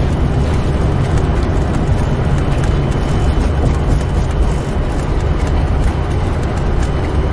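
Flight deck noise of a Boeing 747-400 freighter rolling out on the runway just after touchdown: a steady, loud rumble and rush from the airflow, the engines and the wheels.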